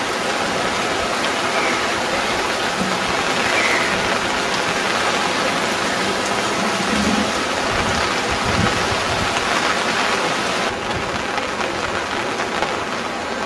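Heavy rain falling steadily, an even hiss with no pauses; the high end of the hiss eases slightly near the end.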